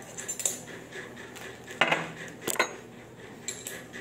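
Small hard household items clinking and knocking together as they are handled, a few sharp clicks with the loudest clatter about two seconds in and another shortly after.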